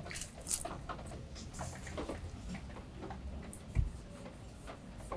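Knife cutting into a skinned sturgeon on a wooden board: a run of small irregular clicks and scrapes, with one louder knock a little before four seconds in.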